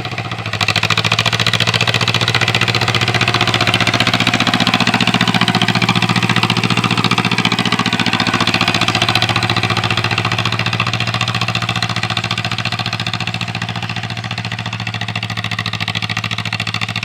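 1947 John Deere M tractor's two-cylinder engine running steadily under work, a fast even chugging that gets louder about half a second in.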